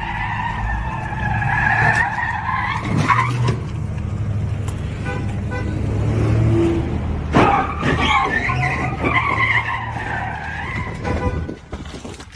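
Car tyres squealing in long, wavering screeches as a sedan spins donuts on asphalt, with the engine running underneath. The squealing comes in two spells: the first fades about three seconds in, and the second starts about seven seconds in and stops near eleven seconds.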